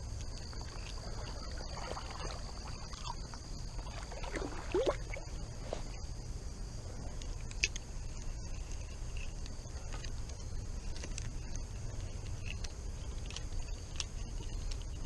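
Creek water sloshing and swishing as a person wades through it, over a steady high-pitched insect chorus. There are a few short sweeping sounds about four to six seconds in, and scattered light clicks.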